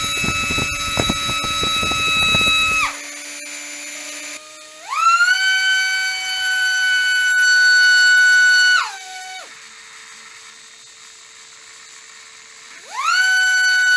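High-pitched electric whine of small RC helicopter motors on a thrust bench. A first motor runs at speed and cuts off about three seconds in. Then the Eachine E160's tail motor spools up quickly to a steady whine, winds down and stops about halfway through, and spools up again near the end.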